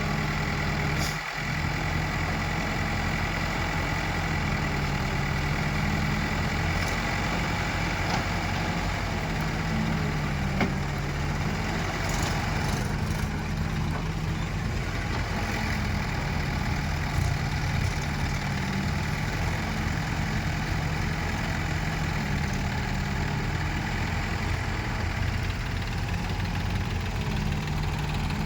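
Diesel engine of a backhoe loader at work, running steadily at an even speed, with a thin steady whine above it and a few light knocks.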